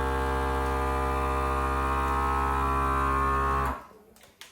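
Vacuum sealer's pump running with a steady hum, then cutting off suddenly near the end, followed by a single click.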